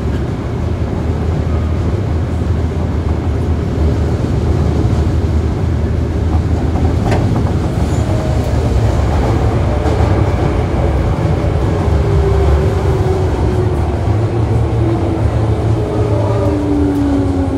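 Toei Asakusa Line 5300 series subway car running, heard from above its VVVF inverter, with a steady deep rumble of wheels on track. Near the end, inverter and motor tones slide down in pitch together as the train slows under braking.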